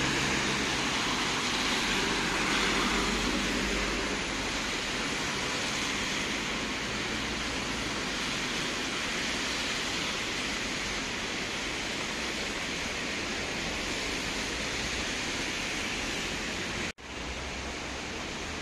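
Steady hiss of rain falling on a wet street, mixed with car tyres swishing along the wet road and a low traffic rumble that is strongest in the first few seconds. The sound cuts out for an instant near the end.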